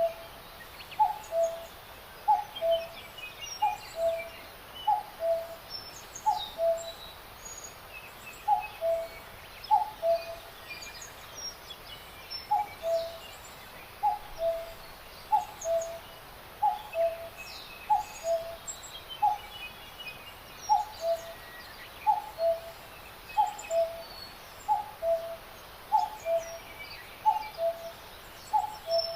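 A bird repeating a two-note call, a higher note dropping to a lower one, about once a second with a few short gaps. Fainter high chirps of other birds come and go over a steady background hiss.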